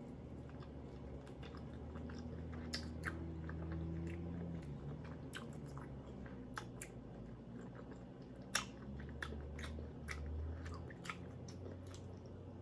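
A person chewing food close to the microphone, with scattered sharp wet mouth clicks and smacks over a low steady hum.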